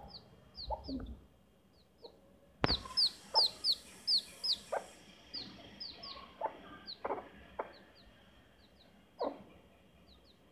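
A chick peeping again and again in short, high, falling peeps, with a desi hen clucking low and short now and then. A single sharp knock sounds about two and a half seconds in.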